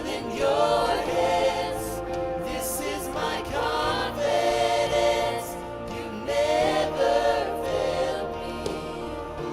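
Church worship song: a choir of voices singing drawn-out phrases over a sustained instrumental backing, swelling with each phrase.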